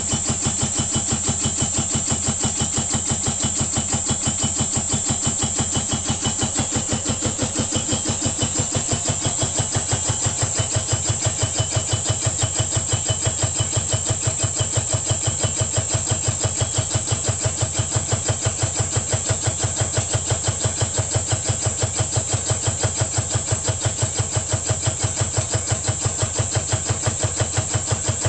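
Rebuilt old reciprocating air compressor running steadily, driven by an electric motor at half speed through an inverter, each compression stroke giving an even, rapid beat of several strokes a second.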